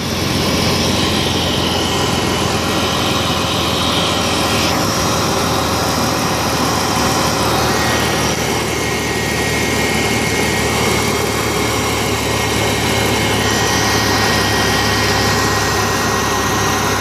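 BMW E46 engine idling after a cold start, with its electric secondary air (smog) pump running as a steady drone over it; the pump is working as it should. The higher part of the sound shifts about five seconds in.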